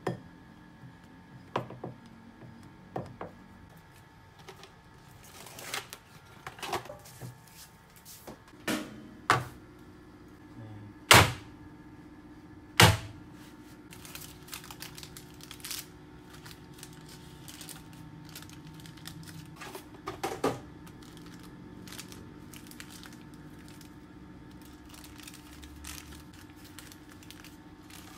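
Kitchen handling sounds: a spatula scraping and tapping a glass bowl, then scattered knocks and clicks, the loudest being two sharp knocks about two seconds apart in the middle. After that comes quieter rustling of parchment paper being peeled from a baked sponge sheet, over a low steady hum.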